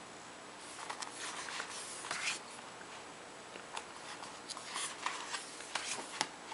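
Blu-ray Digibook packaging being handled: irregular rustling scrapes and sharp light clicks, in two flurries with a short lull between.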